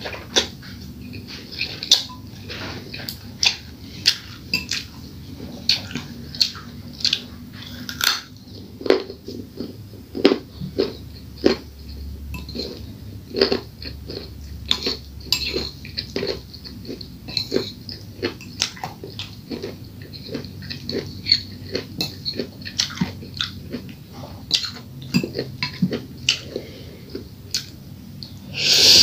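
Close-miked chewing and wet mouth sounds of someone eating fried instant noodles, with irregular clicks of a metal fork against a ceramic bowl and a louder slurp of noodles at the very end.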